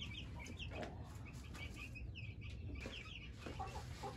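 Faint, repeated short high peeps from chickens, with a few soft clucks near the end.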